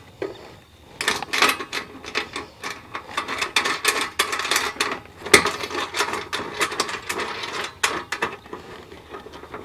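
Paper instruction sheet crackling as it is unfolded and turned over, mixed with light clinking of small metal bolts and nuts being handled. It starts about a second in and goes on as a dense, irregular run of rustles and clicks.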